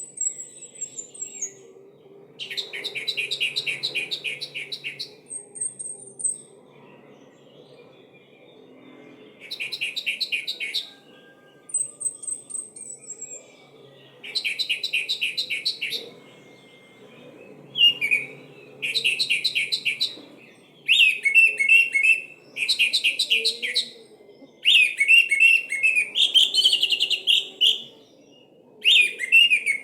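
Orange-headed thrush singing: phrases of rapid, chattering repeated notes, each a second or two to three seconds long. Between them come a few thin, high whistled notes, and after about eighteen seconds the phrases follow one another almost without a break.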